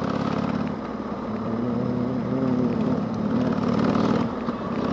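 Harley-Davidson Sportster V-twin engine running steadily while riding, its pitch rising and falling a little with the throttle, with a dip just past four seconds, over steady wind noise.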